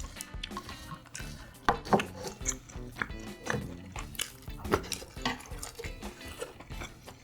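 Clinks and taps of eating utensils against dishes, with soft background music.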